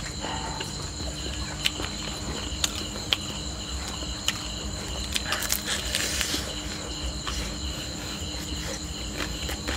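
Insects chirring steadily in several high pitches, with a few sharp clicks and a brief crackling rustle about five to six seconds in as charred grilled frog is torn apart by hand.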